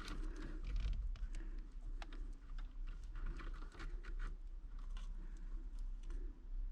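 Light, irregular clicks and rustles of hands working small plastic solder-seal heat-shrink connectors onto stripped wire ends, over a steady low hum.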